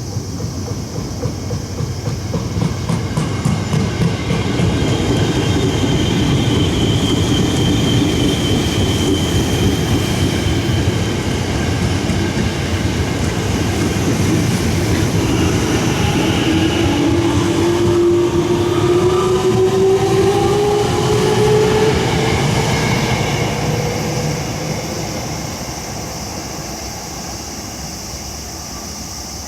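Seibu Ikebukuro Line electric train passing over a level crossing, wheels clattering on the rails, loud for most of its passage and fading away near the end. About halfway through, a motor whine rises in pitch for several seconds.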